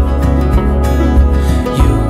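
Background music: an acoustic-guitar song over a steady bass, with no singing in this stretch.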